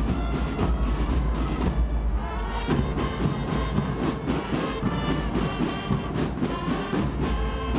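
A school brass band playing, with horns over a steady drum beat.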